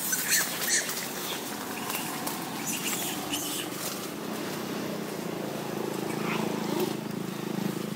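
Long-tailed macaques scuffling in dry leaf litter, with a few short, faint monkey calls near the start. A motorbike engine running on the road grows louder in the second half.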